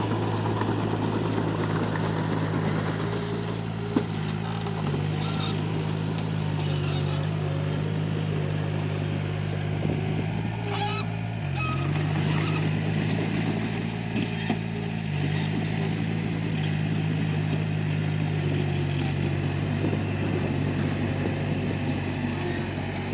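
Komatsu D31P bulldozer's diesel engine running steadily under load, its note dipping briefly a few times. Two sharp knocks are heard, one about four seconds in and another near fifteen seconds.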